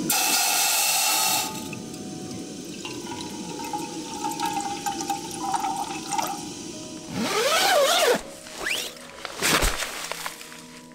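Canister gas camping stove burning with a steady hiss under a metal pot of water heating on it. The hiss is loudest and rushing for the first second and a half.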